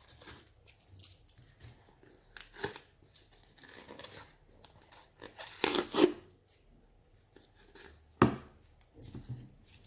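Sticky tape or a sticker being peeled and torn off the shuttlecock box in scattered rips and crackles. The loudest tearing comes a little past halfway, with one more sharp rip a couple of seconds later.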